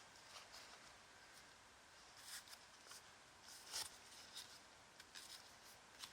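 Very faint, soft swishes and ticks of trading cards being slid and handled one after another, the loudest about two seconds in and near the four-second mark.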